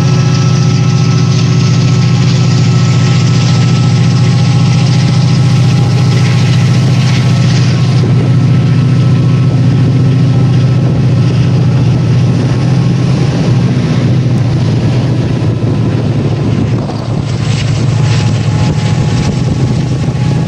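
Class 68 diesel-electric locomotive's Caterpillar V16 engine running loud and steady, heard from inside a passenger coach of the train it is hauling. The level dips briefly about three-quarters of the way through.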